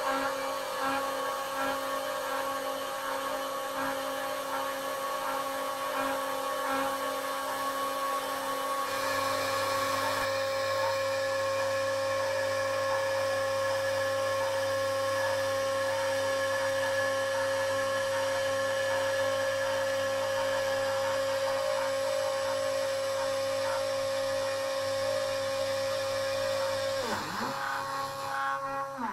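Home-built CNC router's spindle motor whining steadily as the bit mills into a fibreboard (MDF) sheet, with a brief dip in pitch near the end.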